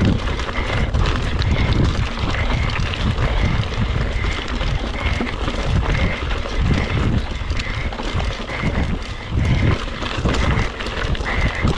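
Mountain bike climbing a dirt and leaf-covered singletrack under hard pedalling: steady wind rumble on the microphone, with the crunch of tyres on the trail and a constant rattle of small knocks from the bike. A faint sound repeats about once a second.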